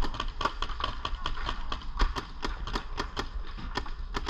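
Paintball markers firing: a steady string of sharp pops at several shots a second, irregularly spaced, quickening into a fast string right at the end.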